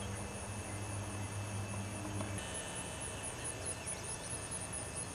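Insects chirping in a high, evenly repeating pulse, with a low steady hum underneath that stops about two and a half seconds in.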